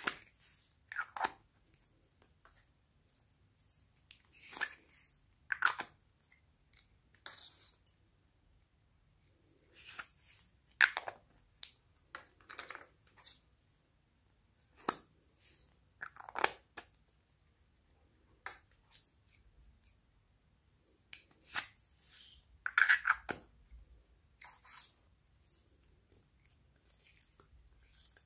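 Small plastic apple-shaped pots being opened and foam beads shaken out of them onto slime, making irregular sharp clicks, snaps and rustling crackles.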